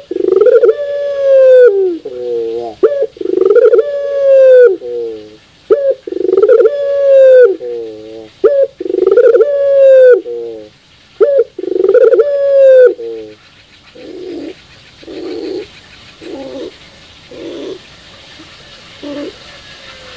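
Caged puter dove (domesticated ringneck dove) cooing loudly: a coo phrase about every three seconds, each a short note, then a long coo that falls off in steps. About two-thirds of the way through it changes to six softer, shorter coos.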